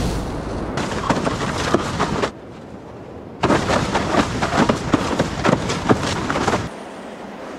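Splashing, crackling water and spray noise in two bursts that start and stop abruptly, with a quieter steady surf rush between them and near the end.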